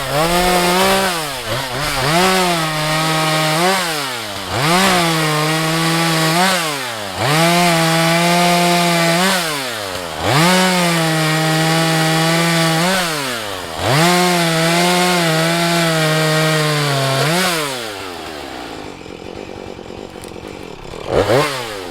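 Husqvarna 435 two-stroke chainsaw revved to full throttle and held in about six cutting bursts of two to three seconds each, the engine dropping back briefly between them, while felling a tree. Near the end it settles to a lower idle, with one short blip of the throttle.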